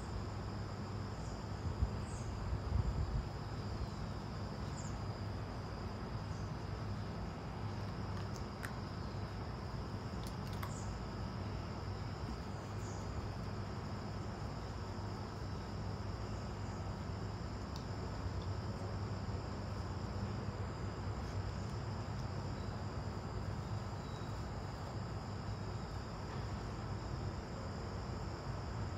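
Steady high-pitched insect chorus, an unbroken drone, with a few faint short chirps over it. Low rumble and a couple of brief thumps come about two to three seconds in.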